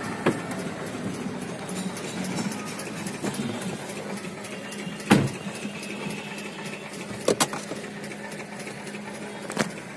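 A steady low mechanical hum inside a car cabin, with a few sharp knocks and clicks: one about five seconds in, a quick pair a little after seven seconds, and one near the end.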